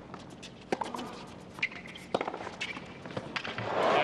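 Tennis rally on a hard court: sharp pops of racket strikes on the ball and ball bounces, with brief squeaks of tennis shoes.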